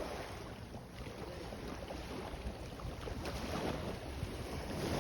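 Sea waves washing in, swelling in surges about three seconds in and again near the end, with wind rumbling on the microphone.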